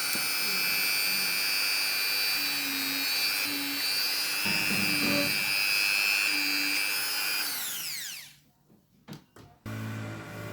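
A small high-speed electric motor runs with a steady high whine. About seven and a half seconds in it is switched off, and its pitch falls as it spins down. After a short lull with a few clicks, a lower steady hum starts near the end.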